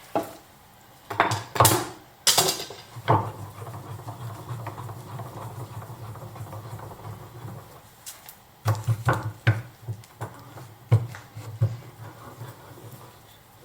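Knocks and clatter of wood and hand tools being handled, several sharp hits in the first few seconds and another cluster later, with a steady low hum between them.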